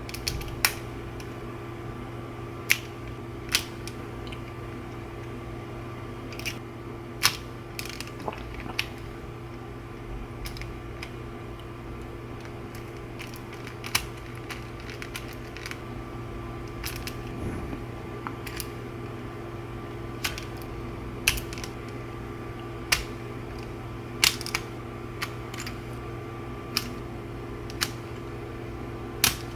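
Sharp, scattered clicks of Lego Technic plastic parts being handled and snapped together, one every second or two, over a steady low hum.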